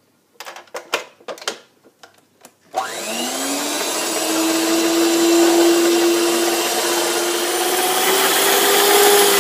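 A few light clicks and knocks, then about three seconds in an electric stand mixer starts up, its motor whine rising quickly and then running steadily as the beaters whisk egg yolks in a plastic bowl.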